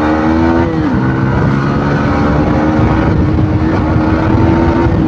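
A Yamaha motorcycle's single-cylinder engine accelerating under throttle, heard from the rider's seat. About a second in, the pitch dips briefly as it shifts from second to third gear, then it pulls steadily with the pitch slowly rising.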